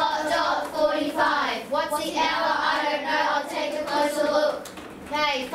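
A class of children chanting together in unison, in a rhythmic sing-song, counting the minutes by fives.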